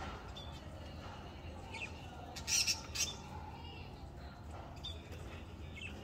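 Small aviary parrots (Fischer's lovebirds and budgerigars) calling: scattered short chirps, and a cluster of loud, shrill squawks near the middle.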